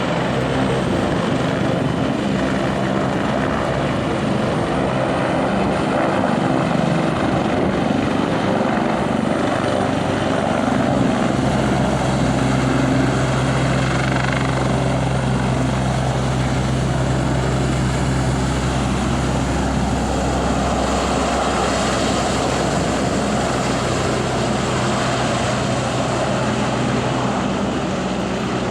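Air-ambulance helicopter running loud and steady, its rotor beat low and its turbines giving a thin high whine. The low rotor sound grows stronger for several seconds in the middle.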